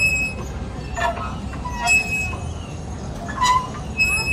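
Metal pivots of an outdoor exercise machine squeaking with each stroke, a short high squeal about every two seconds over a steady low rumble.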